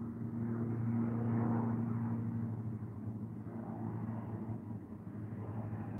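Low engine hum of a motor vehicle passing, swelling about one to two seconds in and then easing off.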